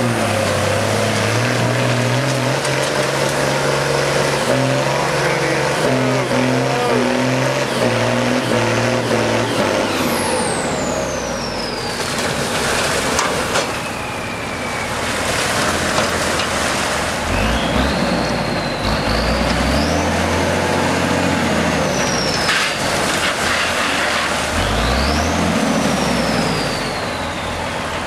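M35A2 deuce-and-a-half army truck's multifuel diesel engine working hard through mud, its revs rising and falling, with a high whistle sweeping up and down with the engine speed in the second half.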